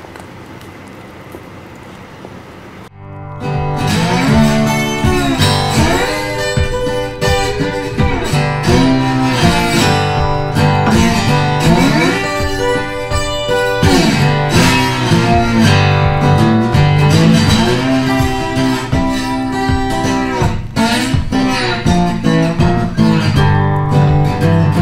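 Low room sound for about three seconds, then guitar music starts and plays on: an acoustic guitar strummed and plucked, with some sliding notes.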